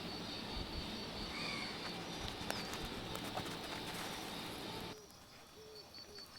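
Steady rain noise with a high, evenly pulsing insect trill; the rain noise drops away sharply about five seconds in, leaving the trill and a few short, low bird calls.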